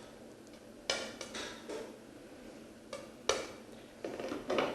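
Kitchen utensils and dishes clattering: a string of separate knocks and scrapes of metal and crockery, the loudest a little over three seconds in and again near the end.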